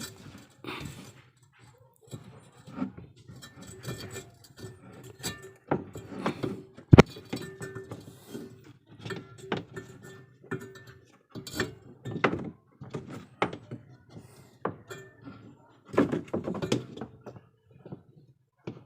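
Scattered knocks, clicks and clatter of a washing machine's parts being handled and fitted back on during a belt replacement, with one sharp, loud knock about seven seconds in.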